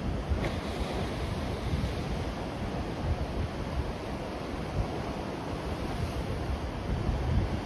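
Ocean surf washing and breaking over a rocky shore platform, a steady rushing, with wind gusting on the microphone.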